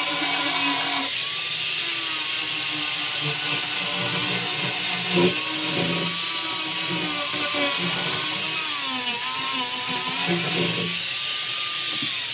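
Electric grinder grinding fiberglass, running steadily. Its motor whine dips and recovers several times as the disc bears into the work.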